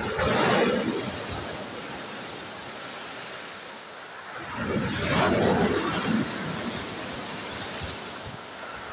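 Sea waves breaking on the shore: two breakers surge in, one right at the start and another about five seconds later, with a steady wash of surf between them.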